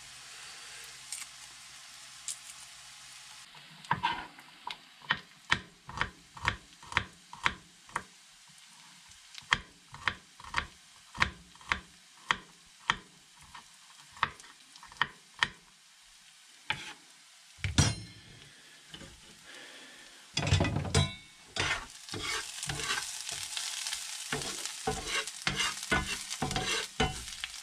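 A kitchen knife chops garlic on a wooden cutting board with sharp, regular chops about two a second, over a faint sizzle of onions frying. A little past two-thirds of the way in there is a loud clatter, then the onions sizzle louder in the cast iron skillet as they are stirred, the utensil scraping the pan.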